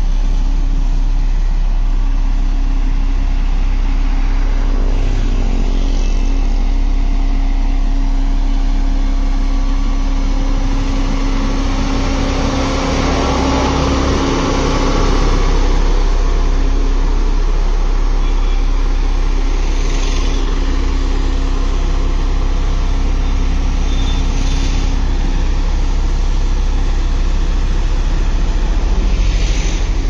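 Diesel engine of a LiuGong single-drum road roller running steadily as the machine rolls over loose earth, getting a little louder as it passes close about halfway through.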